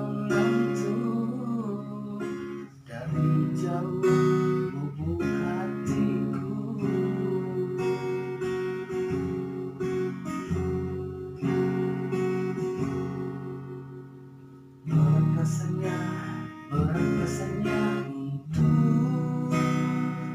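A man singing to a strummed acoustic guitar, in long held phrases with short breaks between them.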